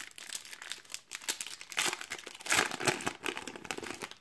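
Plastic wrapper of a Donruss trading-card pack crinkling as it is torn open and handled to get the cards out, loudest a little past halfway.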